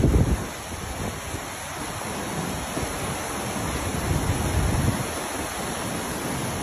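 Fast-flowing brown floodwater rushing by as a steady wash of noise, with wind buffeting the microphone and a louder low gust right at the start.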